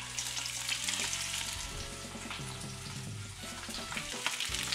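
Spice-coated fish pieces sizzling as they fry in olive oil in a frying pan, the sizzle growing louder near the end. Background music plays underneath.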